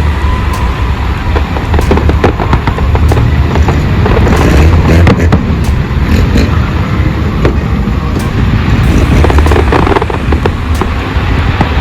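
Fireworks display: a rapid run of sharp cracks and bangs from bursting shells, thickest about halfway through, over a constant deep rumble.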